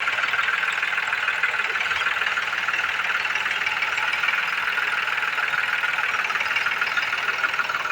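Ford 3600 tractor running steadily while working a potato harvester, a continuous mechanical din with no breaks or changes.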